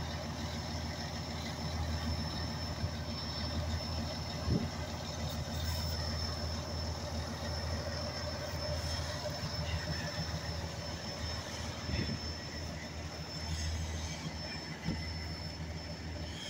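Fire engine idling steadily close by: a constant low engine hum with a thin, steady high whine over it. Two brief knocks are heard, about four and a half seconds in and again near twelve seconds.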